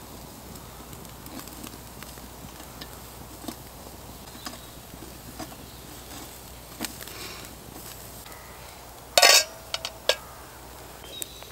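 Campfire crackling with scattered small pops under a steak grilling on a wire grill. About nine seconds in comes a loud metallic clatter with a brief ring, then a couple of sharp clicks, as the steak is lifted off the grill with tongs and set on a plate.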